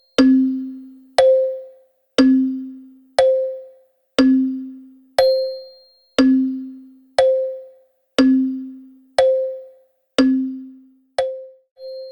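Wall clock ticking: a loud tick-tock of sharp knocks about once a second, alternating lower and higher in pitch, each ringing briefly. Near the end two quicker, weaker beats break the even rhythm.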